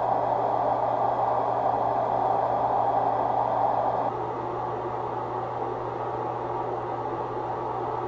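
AV receiver test tone: band-limited pink noise hissing steadily from one speaker after another as the channel-level calibration steps through them. About four seconds in it moves on to the next speaker and the hiss drops in level. A steady low hum runs beneath it.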